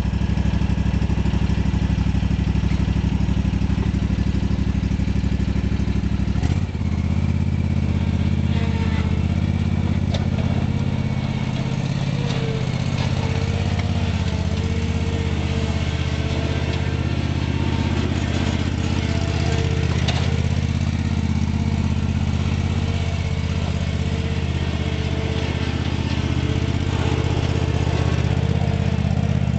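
Toro Titan zero-turn mower's 26 hp Kawasaki V-twin engine running steadily while mowing. About six and a half seconds in, its note shifts abruptly with a brief dip, then it runs on at a steady pitch.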